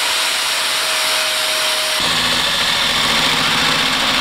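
Angle grinder with a wire wheel running against the brass shell of a cutlass bearing, scrubbing off paint that made it too tight a fit, with a steady whine over a harsh hiss. About two seconds in it gives way abruptly to an electric drill spinning a long rod inside the steel shaft log tube to clear the paint there, a lower running hum with the same hiss.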